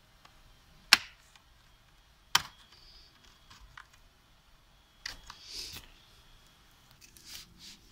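Plastic clips of a laptop's bottom cover snapping loose as a plastic pry tool is worked along the seam. Two sharp snaps come a second and a half apart, then softer clicks and scraping.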